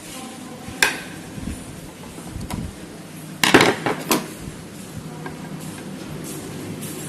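Metal clinks and knocks as a ceiling fan is taken apart with hand tools: one sharp click about a second in, then a quick cluster of louder clanks around the middle.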